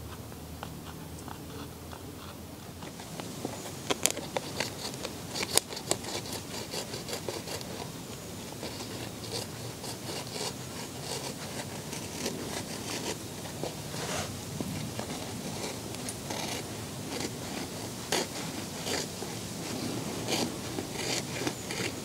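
Flint knife slicing a narrow strip from a piece of deer rawhide: a run of short, irregular crackling scrapes that starts about three seconds in, with a few sharper snaps soon after.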